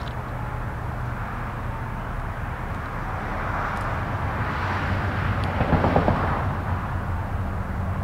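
Outdoor background noise with a steady low hum, and a passing vehicle whose noise swells past the middle and then fades.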